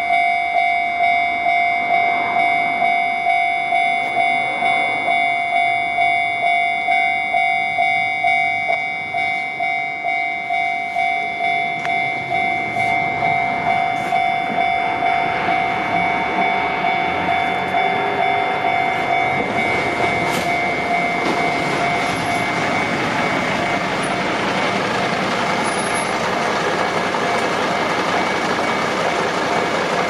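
Japanese railway level-crossing warning bell ringing steadily, a repeating two-tone electronic ding about one and a half times a second, with the barriers down. About halfway through, a heavy vehicle's running rumble rises and stays loud over the bell.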